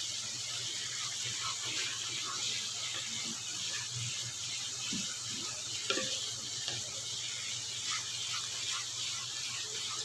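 Thin cashew paste bubbling and sizzling in a nonstick frying pan, a steady hiss with small pops. A wooden spatula stirs and scrapes the pan now and then, with a sharper scrape about six seconds in.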